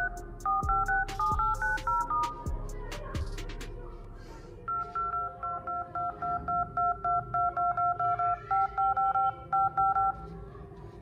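Phone dial-pad key tones (DTMF beeps) on a Tecno Spark 6 Go as digits are tapped into its emergency dialer: a quick run of about eight beeps, then after a pause of about two seconds a longer, even run of about twenty, roughly three to four a second.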